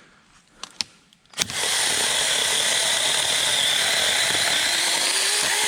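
A 36-volt battery mini chainsaw with a 6-inch bar starts about a second and a half in and runs loud and steady, cutting into a small dead tree. Its note sags slightly near the end under the load of the cut, then it stops abruptly.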